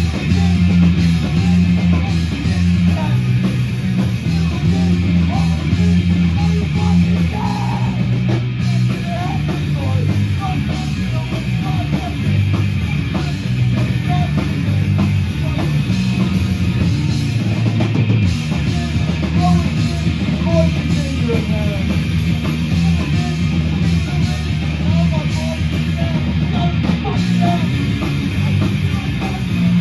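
Hardcore punk band playing loud and live: electric guitar, electric bass and a drum kit, with a singer shouting into the microphone.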